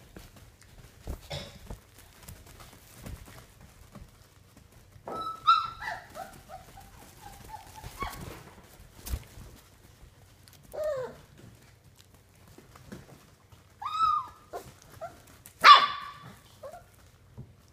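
Young puppies giving small barks and yips now and then. One call about five seconds in trails off into a falling whine, and the loudest bark comes near the end, with light scuffles and taps in between.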